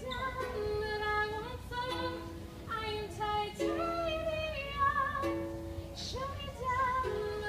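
Music: a female voice singing a melody in held notes, some with a wavering vibrato.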